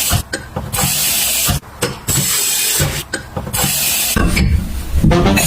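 A high-pressure rinser spraying water in short bursts, each about a second long: three hissing jets with gaps between them, and clicks and knocks in the gaps.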